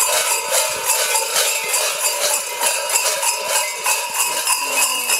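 Clusters of metal bells tied around the waists of Bondrosi costumes jangle and clang with every step of the walking wearers, a steady rhythmic clatter a few times a second with a ringing tone underneath.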